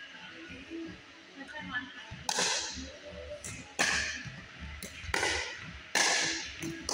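Pickleball rally: paddles striking the hollow plastic ball, with four loud, sharp pops about a second apart starting a couple of seconds in and fainter ticks between them, each echoing around the gym.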